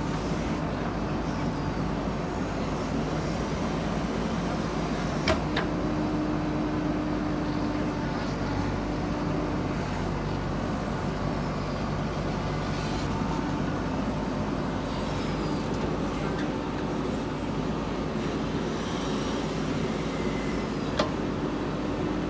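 JCB 3DX backhoe loader's diesel engine running steadily at work, with two short sharp knocks, one about five seconds in and one near the end.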